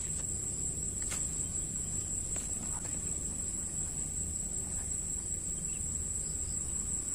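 Insects chirring in one steady high-pitched drone, over a low rumble of outdoor background noise, with a couple of faint ticks.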